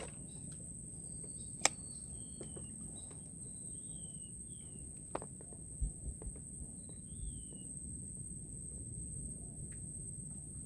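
Steady high-pitched insect drone with short, falling whistled bird calls scattered through. A single sharp click about two seconds in is the loudest sound, and a few soft low thumps follow near the middle.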